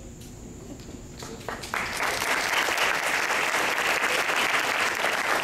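Audience applause: after a short hush and a few single claps, it breaks out sharply just under two seconds in and continues steadily.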